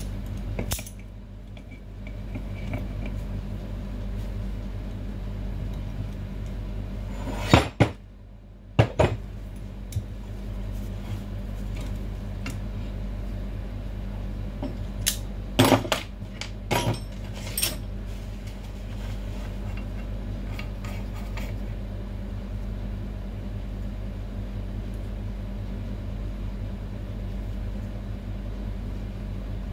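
Metal parts and hand tools clinking and knocking while a barber chair's hydraulic lift cylinder is being reassembled: a handful of sharp clinks, mostly between about 7 and 18 seconds in, over a steady low hum.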